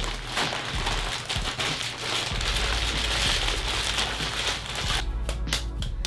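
Plastic bag crinkling and rustling as a lump of stoneware clay is pulled out of it, stopping about five seconds in. Background music underneath, clearer at the end.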